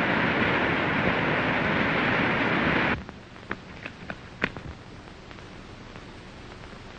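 Waterfall rushing as a loud, steady hiss that cuts off suddenly about three seconds in. After that it is quieter, with a few faint knocks.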